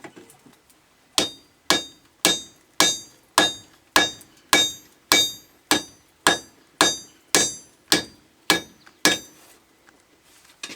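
Blacksmith's hammer striking hot steel on an anvil, forging a spade blank straight out of the fire: about fifteen evenly paced ringing blows, roughly two a second, stopping about a second before the end.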